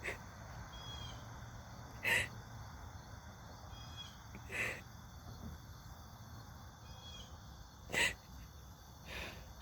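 A person crying quietly, with four short sniffles or breaths a few seconds apart. Faint short chirps of birds or insects sound now and then over a low steady outdoor background.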